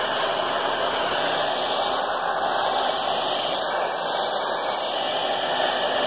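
Hair dryer with a concentrator nozzle blowing steadily, held close to a painted wall to heat wax-crayon marks.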